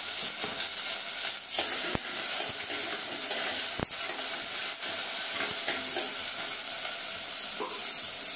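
Onion, curry leaves and dried red chillies sizzling in hot oil in a clay pot, frying for a dal tempering, while a steel spoon stirs them. Two sharp clicks stand out, about two and four seconds in.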